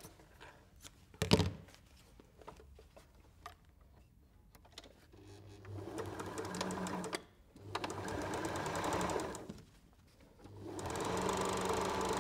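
Electric domestic sewing machine straight-stitching a seam in three runs with short pauses between: the first starts about halfway through and speeds up, and the last is still going at the end. Before that, two sharp clicks in the first second or so, then a quiet stretch.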